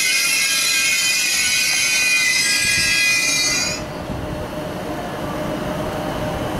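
ICE 3 (class 403) electric trainset rolling slowly past at shunting speed: a loud high-pitched whine and hiss with several steady tones that cuts off suddenly a little under four seconds in, leaving the lower rumble of the train running on the rails.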